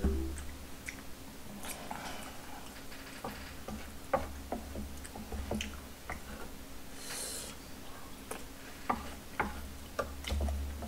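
Eating sounds: chewing, with irregular light clicks of wooden chopsticks on the plate as chili shrimp is picked up.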